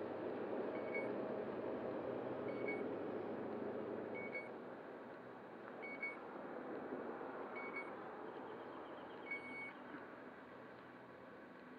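Short, high electronic beep repeating about every 1.7 seconds, six times, the last one slightly longer, over a low rushing noise that fades after about four seconds.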